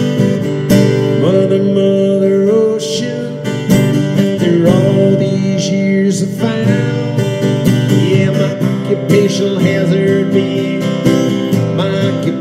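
Steel-string acoustic guitar strummed in steady chords, an instrumental break with no singing.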